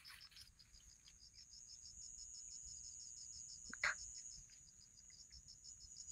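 Faint night insects: a cricket chirping in a fast, even pulse of about seven chirps a second over a steady high insect hum. A single short noise comes about four seconds in.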